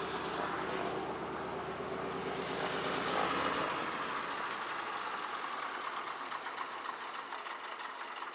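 DHC-2 Beaver floatplane's Pratt & Whitney R-985 nine-cylinder radial engine and propeller running at low power as the plane taxis on the water on its floats. The deep low part of the drone drops away a little before halfway through, leaving a rougher, buzzing engine sound.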